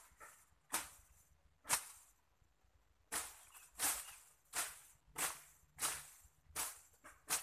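Machete slashing through wet undergrowth while clearing brush: a run of quick swishing cuts, about nine strokes, settling into a steady rhythm of a little over one a second after a short pause.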